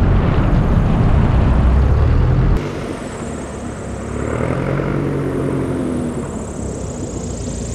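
Cessna 172M Superhawk's 180-horsepower engine and propeller in low flight. First a loud steady rumble heard up close, with wind buffeting the wing-mounted camera. After a sudden cut about two and a half seconds in, it is heard from the ground as the plane approaches, a quieter drone gliding down in pitch.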